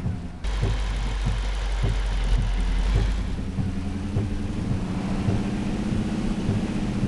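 Toyota Tundra pickup truck driving, heard from inside the cab: steady engine hum with road noise and light regular knocks. A deep rumble runs through the first few seconds.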